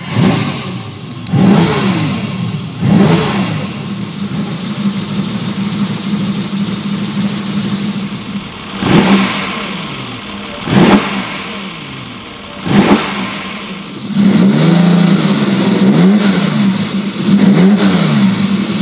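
Ferrari 365 GT 2+2's 4.4-litre carburetted V12 running on the move: a steady engine drone that rises and falls in pitch as it is revved, with three brief loud swells about two seconds apart in the middle.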